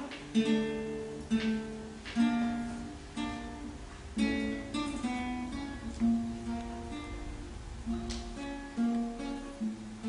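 Acoustic guitar played live, a slow tune of plucked and strummed chords, about one a second, each left to ring.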